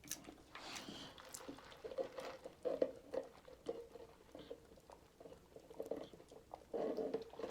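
A person chewing fried chicken close to the microphone, with irregular soft mouth clicks and smacks.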